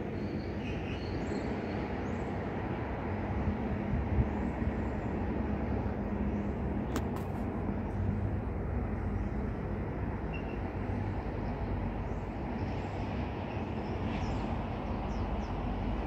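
Outdoor ambience: a steady low rumble with a few faint, short high chirps scattered through it and a single sharp click about halfway.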